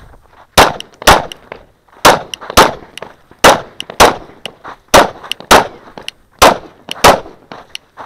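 Glock 19 9mm pistol firing ten shots in five quick pairs. The two shots of each pair are about half a second apart, and the pairs come about a second apart.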